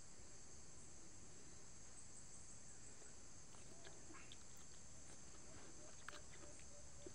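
Faint, steady high-pitched insect chorus, with a few soft clicks as young coconut flesh is scooped out and eaten.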